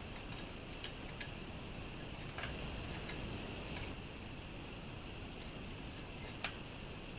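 Light clicks and taps of metal parts being handled by hand inside an Atlas 7B shaper's gear housing, a handful scattered over a faint steady hiss, the sharpest about six and a half seconds in.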